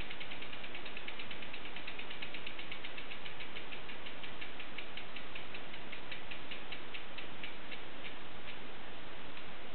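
Rear freehub of a Pro Lite Bracciano A42 wheel ticking as the wheel coasts freely: the pawls ratchet in an even run of clicks that slows steadily as the wheel winds down, over a light hiss.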